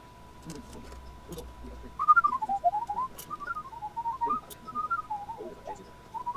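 A person whistling a wandering tune, starting about two seconds in, over a faint steady high tone.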